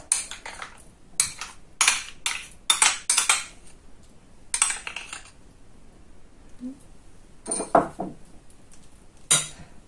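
Metal spoon scooping mayonnaise out of a container onto a plate of food: a run of short, irregular clinks and scrapes of the spoon against the container and the plate.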